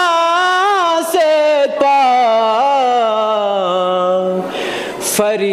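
A male voice chanting a devotional Urdu poem (manqabat) unaccompanied, drawing out long wavering notes. He takes an audible breath about four and a half seconds in before resuming.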